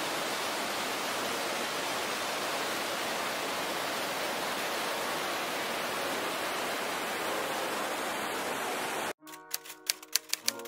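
Steady rush of falling water from a waterfall, an even wash of noise that cuts off abruptly about nine seconds in. Music then starts, with a run of sharp clicks and short tones.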